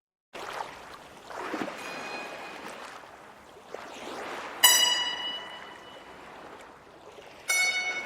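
Music or sound design. Rushing, swelling noise comes in abruptly, then two struck, ringing tones rich in overtones sound about three seconds apart, each dying away.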